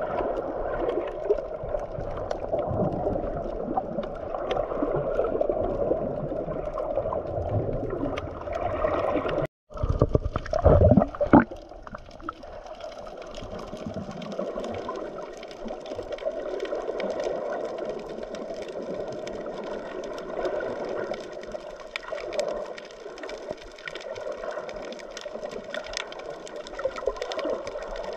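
Sea water gurgling and rushing around the camera as a steady noise. It breaks off for a moment about ten seconds in and is followed by a few loud knocks over the next second and a half.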